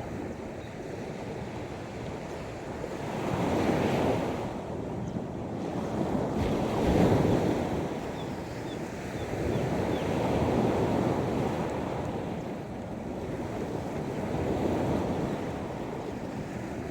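Sea waves breaking and washing up the beach, swelling and falling back about every three to four seconds, with wind buffeting the microphone.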